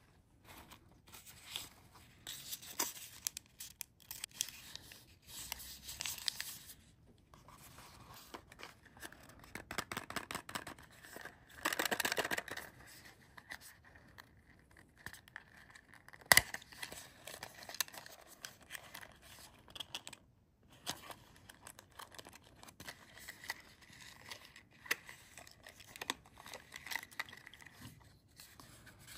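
Small paper and cardboard packaging of a miniature craft kit being handled and opened by hand: scattered crinkling, tearing and rustling, with one sharp click a little past halfway.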